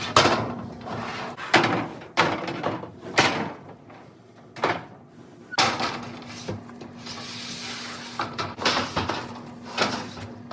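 Sharp knocks and bangs, roughly one a second, from work on metal roofing panels, with a steady hum that comes and goes.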